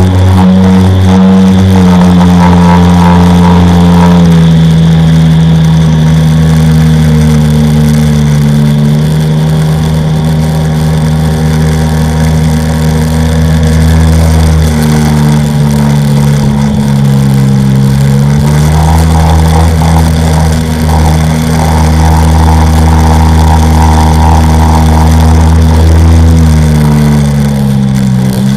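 A Sea-Doo XP jet ski's engine running at steady speed. Its pitch sags as the throttle eases about halfway through and again near the end, then climbs back up.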